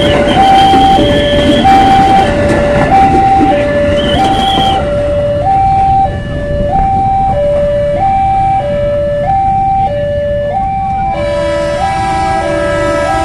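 Railway level-crossing warning bell sounding a two-tone alarm, a high and a low tone alternating evenly, each about two-thirds of a second long. For the first five seconds a commuter electric train rolls past close by, its wheels rumbling with a high squeal, then the train noise stops. Near the end a new steady tone comes in.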